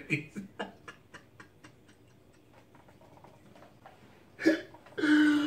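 A man's hard laughter in short rhythmic breathy pulses, fading out over the first two seconds, then a near-silent pause while he is doubled over, and a short burst of his voice near the end.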